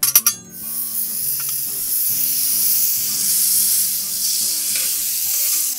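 Butter hitting a hot plancha griddle and sizzling steadily as it melts and is pushed around with a metal spatula. It starts with a few quick clicks of the spatula scraping the butter from its cup.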